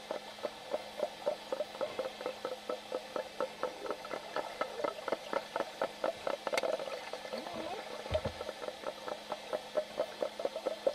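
Dolphins clicking underwater: a steady train of clicks, about five or six a second, with a brief low sound a little after eight seconds in.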